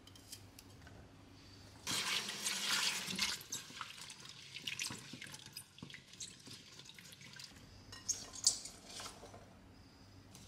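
Water splashing as hands swish cut green beans in a glass bowl in a stainless steel sink. A burst of running water about two seconds in, then lighter splashing and scattered small clinks.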